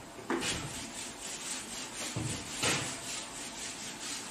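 Whiteboard duster rubbing back and forth across a whiteboard, wiping off marker writing in quick repeated strokes, one stroke louder about two and a half seconds in.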